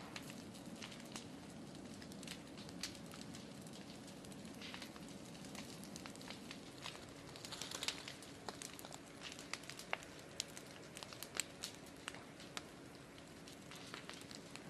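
Wildfire burning through forest-floor brush and fallen branches: a low steady rush of flame with irregular sharp crackles and pops, coming thicker in the second half.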